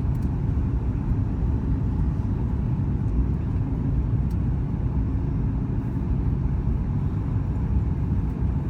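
Steady cabin rumble of a Boeing 737 MAX 8 with CFM LEAP-1B engines on approach: engine and airflow noise, even and low, with a faint steady tone above it.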